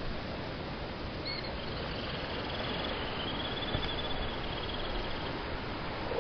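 Steady wash of ocean surf on a rocky shore. A faint, high, rapid trill runs through the middle few seconds.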